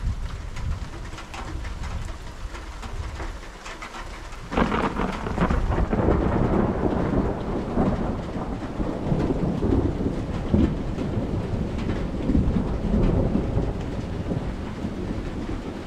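Rain pattering with a low rumble of thunder; about four and a half seconds in, a sudden loud thunderclap breaks and rolls on as a long rumble that slowly eases off.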